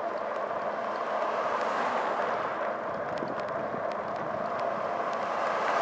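Steady rushing wind and road noise from riding a bicycle along a paved road, heard on a camera mounted on the bike, with a few faint light ticks.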